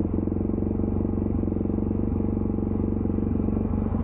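Suzuki DRZ400SM supermoto's single-cylinder four-stroke engine idling steadily with an even firing pulse, freshly started and warming up, breathing through a new K&N air filter.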